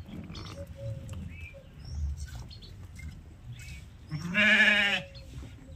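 A sheep bleats once, a single loud wavering bleat just under a second long, about four seconds in.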